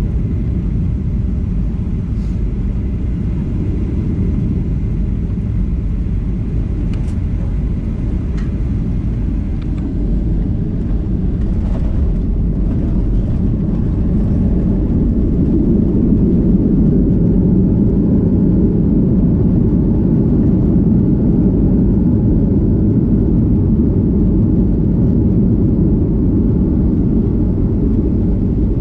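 Steady low rumble in the cabin of a Boeing 737-900ER as it rolls on the ground after landing, from the engines and the rolling of the airliner. It grows somewhat louder about halfway through, with a few faint ticks and rattles.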